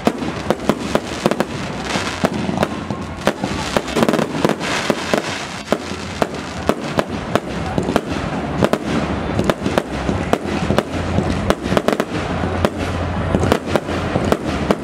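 Fireworks finale: aerial bursts going off in rapid, irregular succession, several sharp bangs a second with a dense crackle between them.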